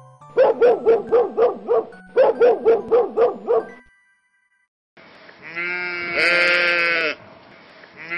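Dog barking in two quick runs of about half a dozen barks each, then after a short pause a sheep bleating in one long call.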